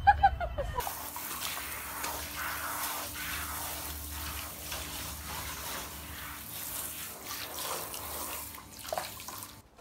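Water spraying steadily from a hand-held shower head as a puma is rinsed, cutting off suddenly near the end.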